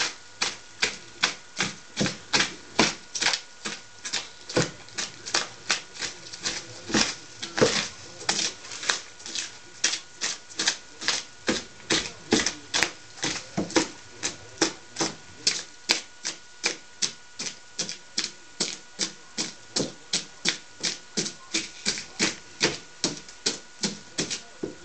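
A hand tool scraping and chipping chunks out of a block of carving foam, in quick, even strokes about three a second.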